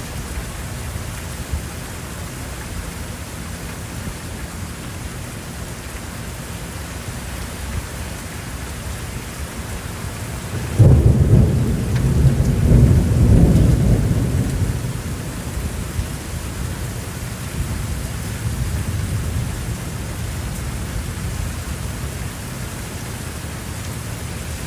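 Steady rain falling, with a loud clap of thunder about eleven seconds in that rumbles low for a few seconds and then fades back into the rain.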